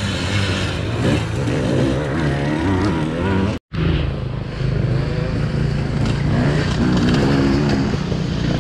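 Enduro dirt bike engines revving and running under load, the engine note rising and falling with the throttle. A little over a third of the way in, the sound cuts out for an instant, then other bikes' engines carry on, close by.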